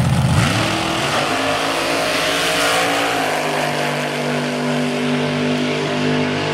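Front-engine dragster's engine at full throttle on a quarter-mile pass, its note climbing as it accelerates down the strip.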